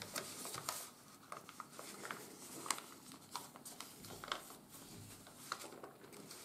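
Sheet of 80 g/m² office paper being folded and pressed flat by hand on a wooden tabletop: faint, scattered rustles and small crinkles of the paper.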